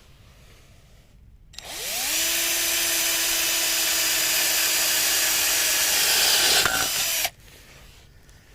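Power drill with a tile drill bit boring a hole through a flower pot. The motor spins up about a second and a half in and runs steadily with a grinding hiss for about five seconds, then stops abruptly.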